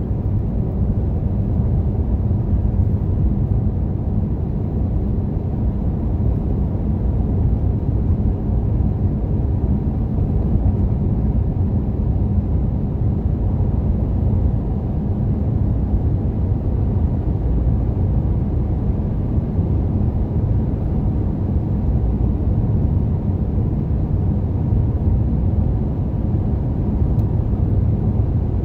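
Car driving along a paved highway at speed: a steady, low rumble of tyres on the road and engine, heard from inside the car.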